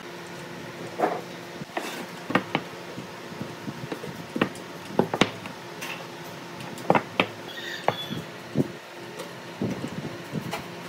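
Wooden pieces being handled on a wooden workbench: irregular knocks and taps of wood on wood, a dozen or so, some sharper than others.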